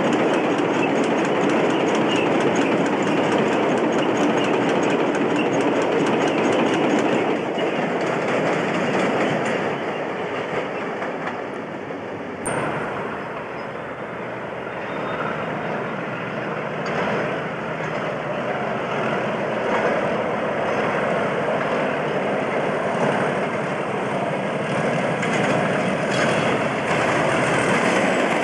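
British Rail Class 37 diesel locomotives passing with their trains: the engine runs and the wheels clatter over the rail joints. There is a sharp click and a break about twelve seconds in, after which the sound is quieter and then builds again as the second locomotive draws near.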